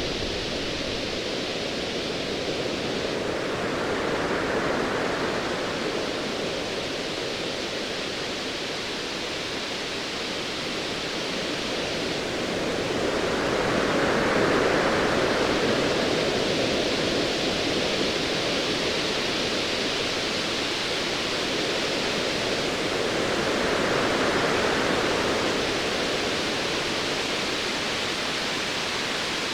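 Ocean waves: a steady wash of surf that swells and recedes three times, about ten seconds apart.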